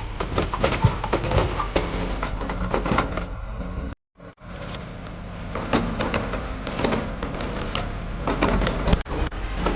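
A heavy machine's engine running steadily under load, with frequent sharp knocks and cracks from the work. The sound cuts out briefly about four seconds in.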